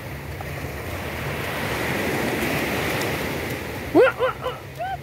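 Small waves washing up and back on a sandy beach, swelling and easing, with wind on the microphone. About four seconds in, a quick run of four or five short, rising cries cuts in over the wash.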